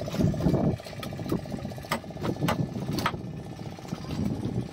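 An engine running steadily, its hum fading out under a second in, with a series of sharp clicks and taps every half second or so.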